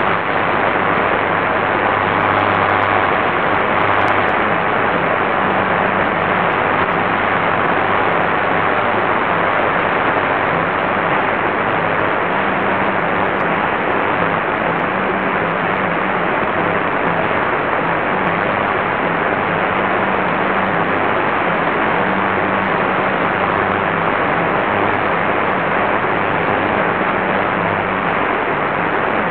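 Qodosen SR-286 radio receiving a weak, distant medium-wave station on 1116 kHz: steady, loud static hiss with a low hum, the signal barely there under the noise.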